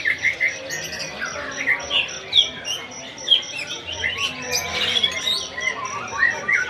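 White-rumped shamas (murai batu) singing in competition style: dense, overlapping chirps, whistles and slurred phrases. A high, even ticking note repeats about five times a second underneath.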